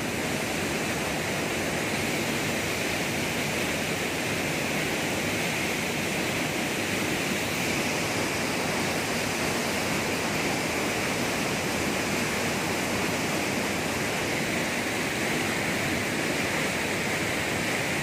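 A waterfall's steady rush of falling water, loud and unchanging.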